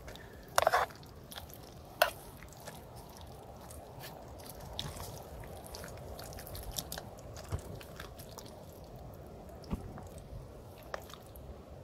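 A person eating spaghetti: quiet chewing close to the microphone, with scattered light clicks of a plastic spork against the mess-kit bowl. The sharpest click comes about two seconds in.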